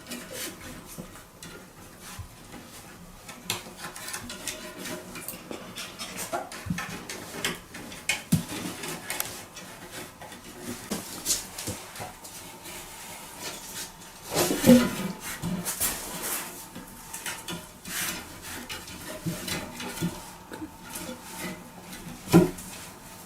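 Irregular knocking and clattering of household objects, mixed with small noises from a pet animal. The loudest knock comes about fourteen seconds in, with another sharp one near the end.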